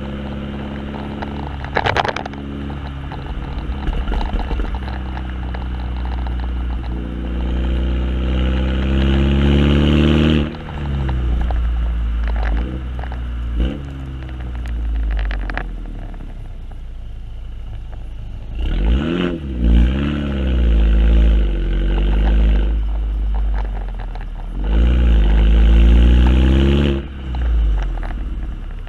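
Exhaust of a 2015 MINI Cooper Hardtop with John Cooper Works exhaust, recorded at the twin tips while driving: the engine note climbs through two hard accelerations and a shorter rev change, each cut off suddenly when the throttle lifts or the gear changes. A few short, sharp pops come between the pulls.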